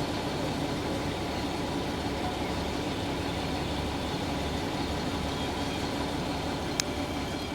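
Engine running steadily at a constant pitch, with a single sharp click near the end.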